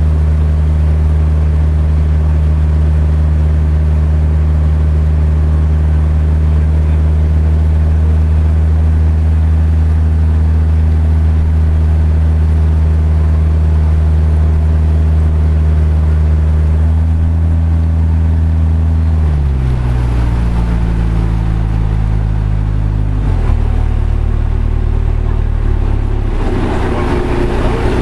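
Riverboat engine running steadily at cruising speed, with water rushing past the hull. About two-thirds of the way through, its pitch drops in two steps as the engine is throttled back, and near the end the steady hum gives way to a rougher rushing noise.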